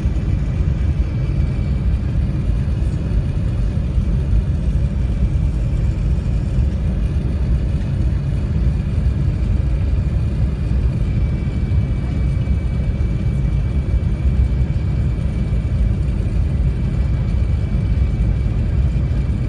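Airbus A380 cabin noise heard inside the upper deck: a steady deep rumble of the four jet engines and the airflow, with a faint steady high whine running through it.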